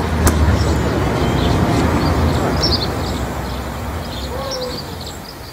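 Outdoor ambience of indistinct voices over a low traffic-like rumble, fading out steadily towards the end.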